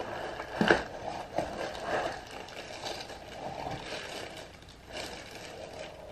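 A thin plastic bag rustling and crinkling as a boxed radio is lifted out of its cardboard box and slid out of the bag, with a sharp knock about two-thirds of a second in and softer knocks of handling after it.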